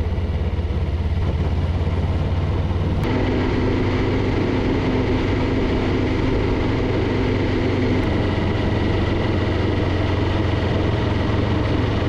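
Car driving along a road: steady engine hum and tyre and road noise, the sound changing abruptly about three seconds in.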